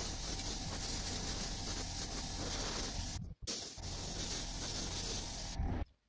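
Gravity-feed airbrush spraying paint in a steady hiss, which cuts off briefly about three seconds in and stops just before the end.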